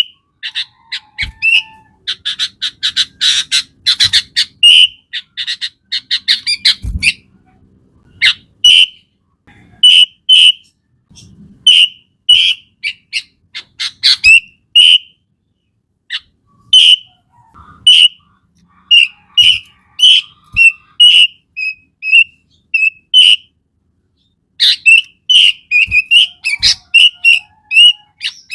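Sooty-headed bulbul (kutilang) singing: loud, short whistled notes repeated every second or so, with spells of fast, dense chattering in the first few seconds.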